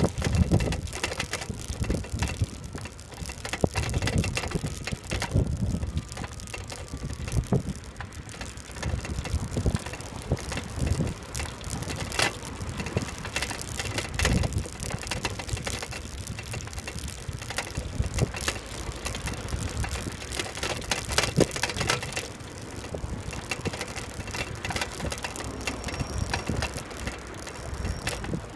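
Bicycle rolling along a paved path, its frame and rack rattling and clicking over bumps, with wind rumbling on the microphone.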